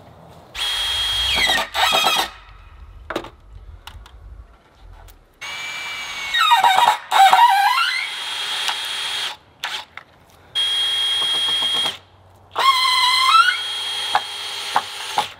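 Power drill driving screws into a wooden cedar board, in about five runs of up to a few seconds each, its whine sliding up and down in pitch as the trigger is squeezed and eased.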